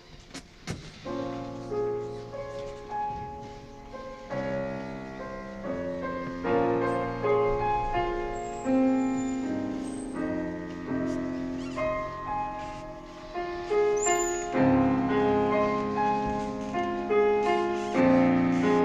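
Grand piano played solo, a classical piece in chords and running notes, growing louder over the first few seconds. A couple of soft knocks in the first second.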